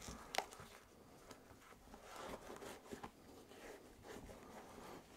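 Faint handling noises of a foam insole being pushed into a Nike Air Max 90 sneaker and its laces being worked: soft rustles and scuffs, with a light tap about half a second in.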